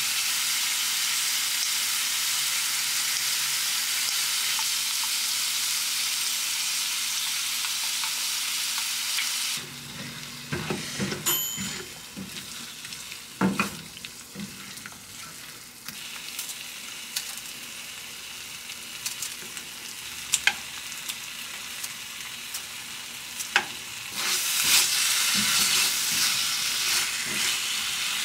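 Pork and onion sizzling steadily in a frying pan. After about ten seconds the sizzle drops, and a spatula stirs the pork in its red sauce with scattered clicks and scrapes against the pan. The sizzle grows louder again near the end.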